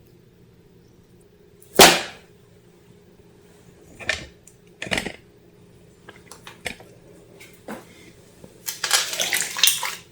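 Slime being made by hand: a sharp noisy hit about two seconds in, two softer ones a few seconds later, a few light clicks, then dense crackling handling noise from about nine seconds in.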